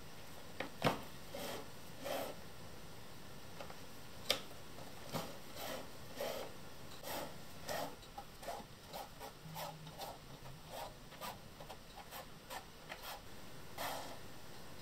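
Hand saddle-stitching leather: thread drawn through the stitch holes in a series of short, irregular rubbing strokes, with two sharper clicks about a second and about four seconds in.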